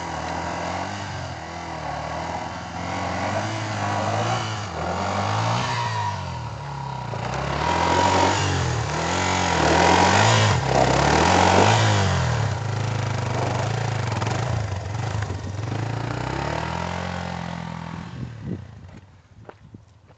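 Yamaha TT-R dirt bike's single-cylinder four-stroke engine revved up and down over and over as its rear wheel spins in loose dirt. The revving is loudest about halfway through, and the sound fades away over the last couple of seconds.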